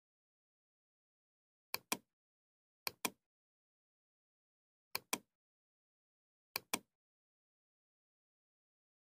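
Computer mouse button clicked four times, each click a quick press-and-release double tick, one to two seconds apart with dead silence between.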